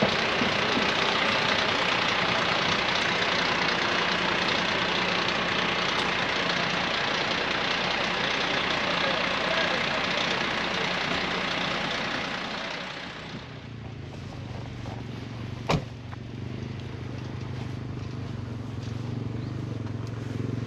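Fire truck engine running steadily under a loud, even rushing noise. About two-thirds of the way in, this gives way to the quieter, steady low hum of a side-by-side utility vehicle's engine, with one sharp click shortly after.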